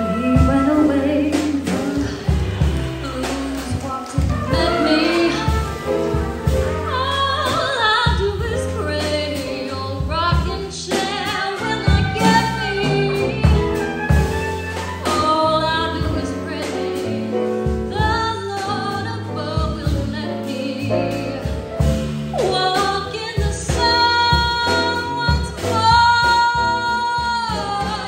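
Small jazz combo playing a ballad: saxophone and trumpet lines over piano, guitar, drums and a stepping bass line. Near the end the horns hold long notes together.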